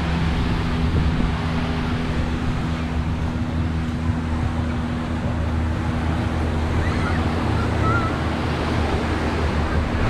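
Ocean surf washing onto the beach, a steady rush, with wind buffeting the microphone and a steady low hum underneath.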